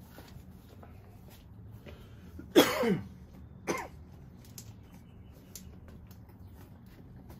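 A person coughing twice, about a second apart, the first cough louder and longer. Faint small clicks can be heard in between.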